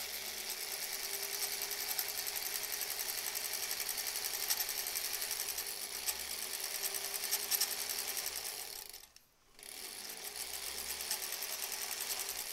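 Domestic sewing machine running steadily, the needle stitching at a rapid, even rate while top-stitching cotton fabric. It stops for about half a second about nine seconds in, then starts again.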